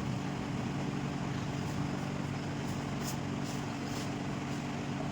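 Steady low mechanical hum, with a few faint ticks around the middle.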